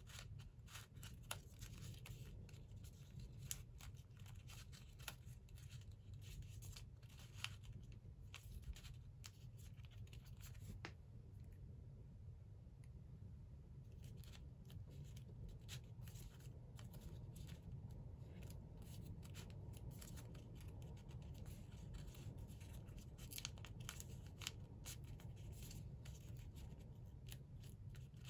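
Faint crackling and rustling of origami paper as folded flaps are slid and tucked into one another, with a quieter lull a little before halfway, over a low steady hum.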